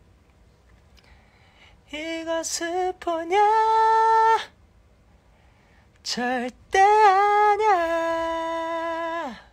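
A man singing unaccompanied in a high voice: two held phrases, the second ending in a downward slide.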